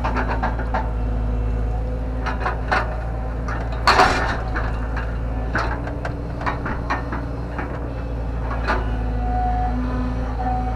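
JCB JS130 tracked excavator's diesel engine running steadily, heard from inside the cab, with a hydraulic whine that comes and goes as the arm works. Scattered knocks and clunks come from the bucket digging a trench, the loudest about four seconds in.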